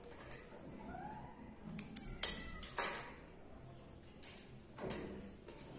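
Hands handling fabric on a tabletop: soft rustling with a few sharp little clicks and taps, the two loudest a little after two seconds in.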